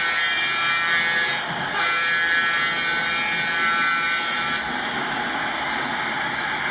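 Sound-equipped model Baldwin Centipede diesel locomotive blowing its horn through its small onboard speaker: two long blasts, the first about a second and a half, the second about two and a half seconds, over a steady engine sound.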